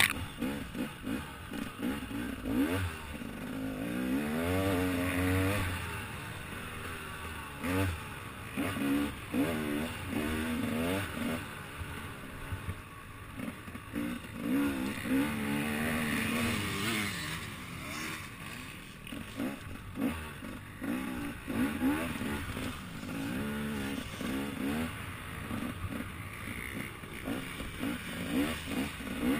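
Dirt bike engine heard from on the bike, revving up and falling back again and again as the rider works the throttle over the course, with knocks and rattles from the bike over rough ground and a sharp knock right at the start.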